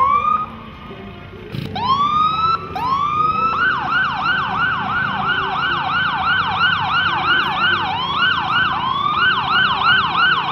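Siren on a fire-truck parade float: a few separate rising whoops, then about three and a half seconds in it switches to a fast yelp of about three sweeps a second, slowing briefly once before speeding up again.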